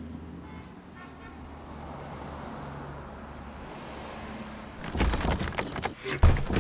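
A car passing on a street: a steady rush of traffic noise that swells slightly and fades. About five seconds in, louder clattering knocks take over.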